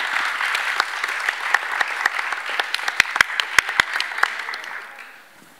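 Audience applauding, with a handful of louder, nearer claps about three seconds in, then the applause dies away near the end.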